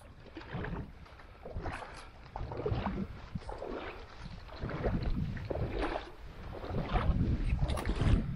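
A person wading through shallow water, the legs sloshing and splashing through it with each stride, about one stride a second, growing louder in the second half.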